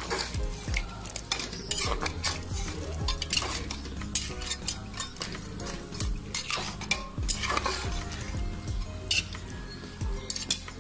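A metal spoon stirring mutton pieces in curry gravy in a metal pot, with irregular scraping and clinking against the pot.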